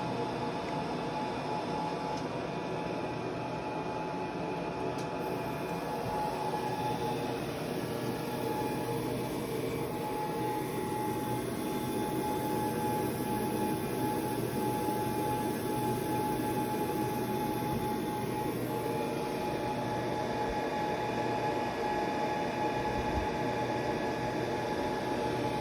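Laser marking machine running while it marks stainless chrome metal: a steady mechanical whir with a thin, steady whine that becomes more distinct partway through.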